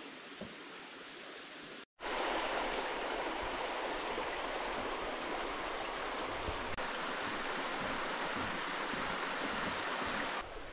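Shallow, rocky stream running over stones: a steady rush of water that starts abruptly about two seconds in, after a quieter stretch of faint outdoor air.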